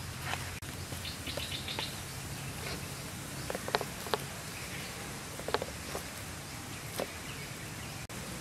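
Outdoor ambience with birds and insects chirping, including a quick run of short high chirps about a second in. Over it come several sharp taps and clicks from a knife cutting through grilled pork ribs on a plate.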